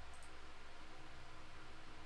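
Steady low hum and hiss of background room noise, with a faint quick double click shortly after the start.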